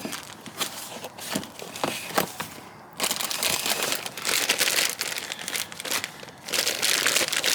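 Spare car parts being rummaged through in a box: a few light knocks and clinks, then from about three seconds in, continuous crinkling of packaging being handled.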